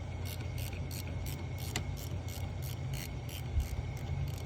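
Ratchet wrench with a 5/16 socket clicking steadily, about three clicks a second, as it turns a bolt.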